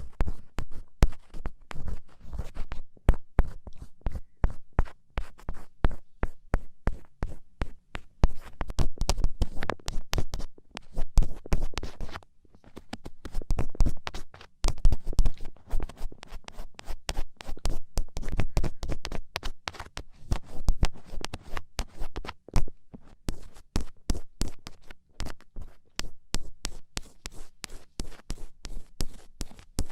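Black ear pick scratching and scraping in rapid, irregular strokes with many small clicks, pausing briefly about twelve seconds in and again around twenty-three seconds.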